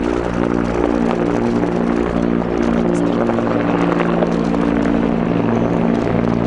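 Two AH-64D Apache attack helicopters flying past overhead. Their rotors and turbines make a loud, steady drone of several low tones, whose pitch shifts slightly as they move.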